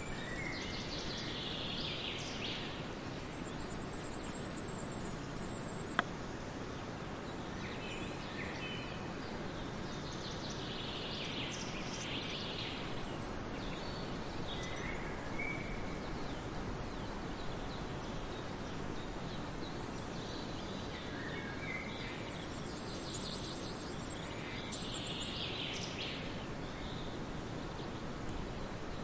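Outdoor nature ambience: a steady hiss with birds chirping now and then in a few short bursts, and a single sharp click about six seconds in.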